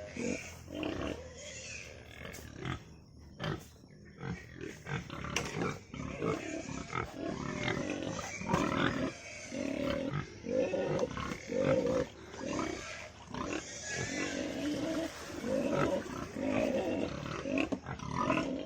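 Several pigs squealing and grunting over one another, many short and longer calls overlapping: hungry pigs calling at feeding time.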